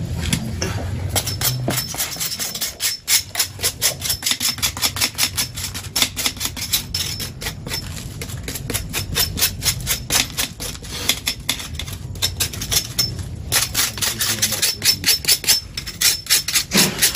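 Knife scraping the charred skin off a roasted yam in quick, repeated strokes, several a second, with a short pause near the end.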